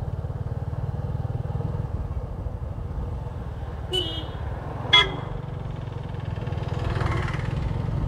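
Motorcycle engine running steadily under way, with two short horn toots about four and five seconds in, the second one louder.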